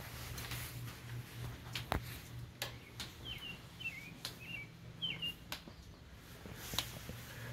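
Water drips landing on plastic, a few sharp ticks at uneven intervals, over a low steady hum. A small bird chirps several times in the middle.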